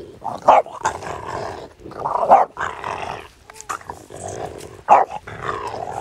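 French bulldog play-growling almost without a break, with several sharp loud barks: about half a second in, around two seconds in and near five seconds. The growl and barks come from a dog excited at a stick held over it.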